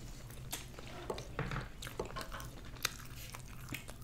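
Close-miked eating sounds: chewing and mouth noises, with scattered soft clicks and wet squishes as food is picked up by hand from the pan.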